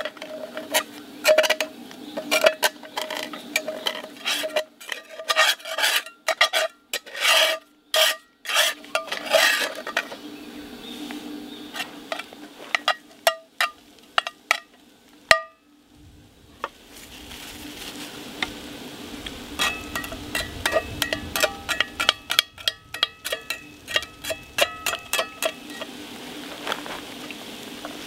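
A spatula scraping and knocking in quick strokes on a Lodge 10-inch cast-iron skillet, working up the browned bits stuck to the pan. After a short lull about halfway in, food sizzles in the pan under the scraping.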